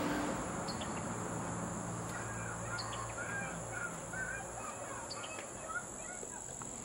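Outdoor ambience: a steady high-pitched insect drone, such as crickets, with short bird chirps scattered throughout.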